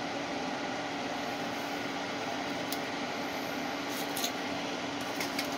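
Salvaged welder cooling fan in a homemade coffee-can fume extractor running steadily: an even rush of air with a constant low hum as it draws air through its carbon filter. A few light clicks come in the last couple of seconds.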